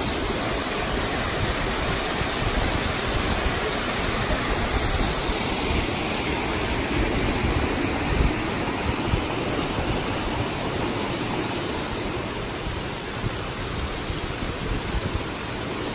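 Mountain stream rushing over boulders in small cascades: a steady, unbroken rush of water.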